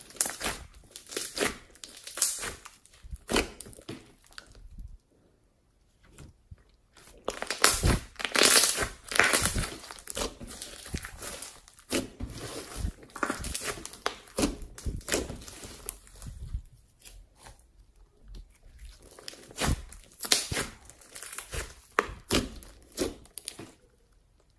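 Slime being squeezed and stretched by hand, giving irregular crackles and pops, with a short pause about five seconds in.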